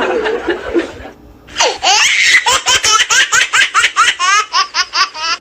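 Laughter sound effect: after a brief pause, a rapid string of short, high-pitched laughs, several a second, that ends abruptly.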